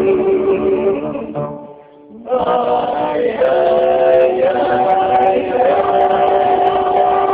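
A few men singing together in harmony on long held notes. The voices fade and break off briefly about two seconds in, then return on a held chord with a few note changes, closing the song.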